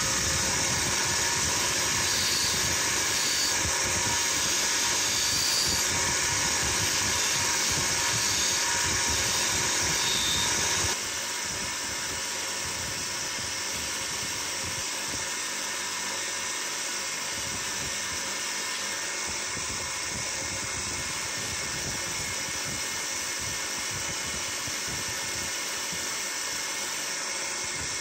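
A small motor running steadily with a whirring whine, dropping a little in level about eleven seconds in.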